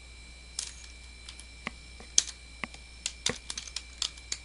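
Typing on a computer keyboard: irregular key clicks, a few scattered at first and coming quicker in the second half, over a faint steady hum.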